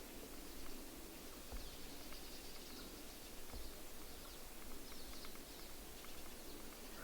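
Faint, quick high-pitched chirps of small birds, repeating over a soft steady hiss, with a few soft low thumps.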